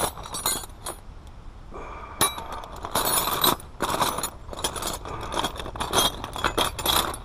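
Steel wrenches clinking and clattering against each other and a hydraulic fitting, in an irregular run of sharp metallic clinks, as wrench sizes are sorted and tried.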